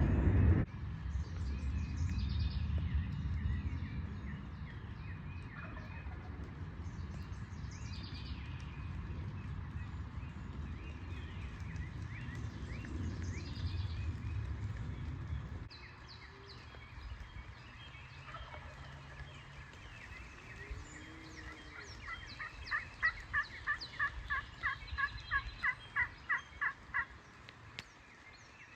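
Turkey calling: a run of about a dozen evenly spaced notes, roughly two to three a second, starting about two-thirds of the way in. Before that a low rumble fills the first half and stops suddenly, with faint small-bird chirps throughout.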